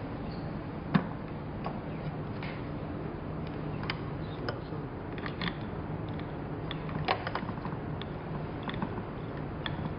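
Steam mop running: a steady low hum with irregular clicks and ticks, the loudest click about a second in.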